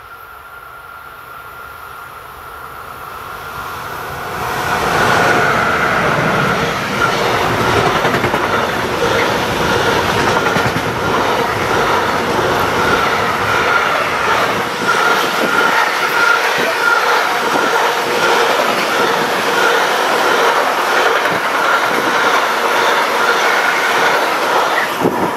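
Electric freight train passing close by: a Siemens Vectron class 193 locomotive approaches and passes about five seconds in, then a long string of intermodal wagons carrying truck trailers rolls by loud and steady. Rapid wheel clicks run over a steady high squeal.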